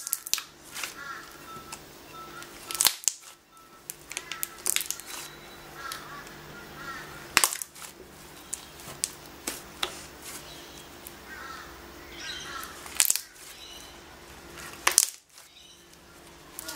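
Thick slime being squeezed, folded and stretched by hand, giving irregular sharp clicks and pops as air pockets burst, the loudest a few seconds apart.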